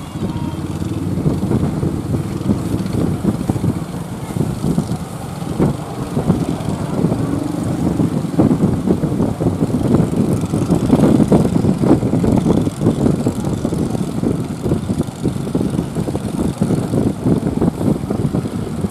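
Inboard engine of a wooden fishing boat running steadily as it tows a second boat that has engine trouble. It grows loudest about halfway through as the boat passes close.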